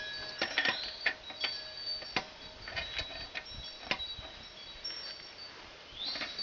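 Adjustable wrench being fitted onto a sillcock: a string of separate metallic clicks and knocks, with thin high ringing tones hanging on between them.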